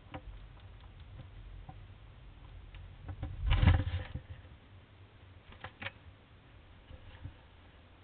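Faint patter and scratching of small animal feet on the wood shavings and boards of a wooden feeding box, with a short loud flurry of scrabbling about three and a half seconds in and a few more light clicks a couple of seconds later.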